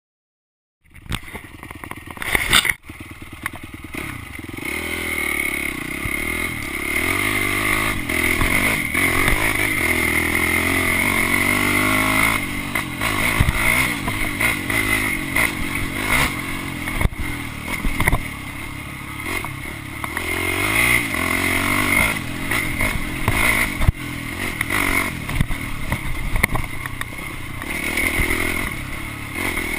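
Dirt bike engine running, its pitch rising and falling as the throttle is worked, with scattered clattering knocks over it.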